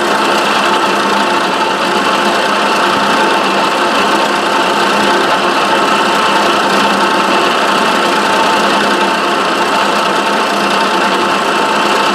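Milling machine spindle running a two-flute end mill through a Delrin block, a steady even machine hum with a constant whine over it.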